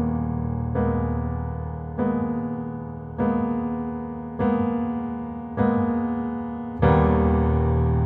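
Background music: slow piano chords over a held low bass, a new chord struck about every 1.2 seconds and left to fade. A louder, fuller chord comes near the end.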